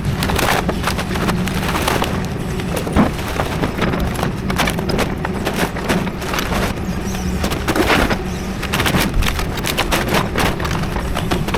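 Hydraulic excavator running steadily while it crushes building debris, with repeated irregular cracks, knocks and splintering of wood and rubble.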